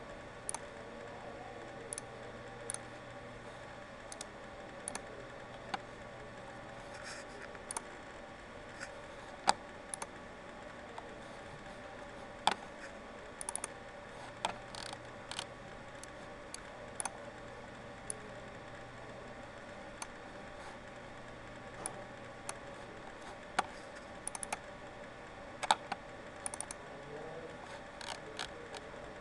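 Computer mouse clicking at irregular intervals, single clicks and quick pairs, over a steady electrical hum with a faint held tone.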